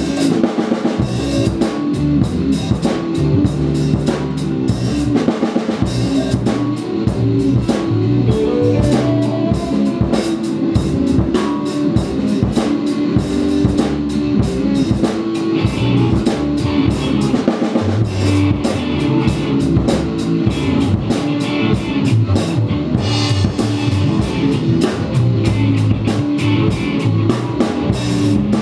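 A band jamming live with no singing: electric guitars, bass guitar and drum kit playing together, loud and steady with a regular drum beat.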